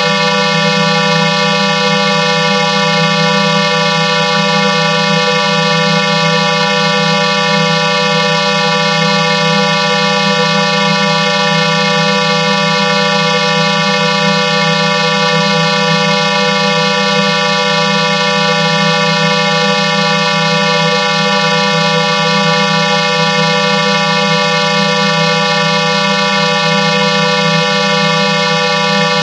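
Synthesized 'pulse clearer' sound effect run through a vocoder: a loud, steady drone of many held tones stacked like a chord over a low hum, holding unchanged throughout.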